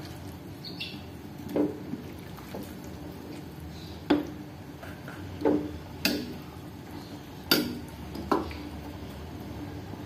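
Metal ladle stirring vegetable soup in a black wok, knocking against the pan about six times with short ringing clinks while the broth sloshes.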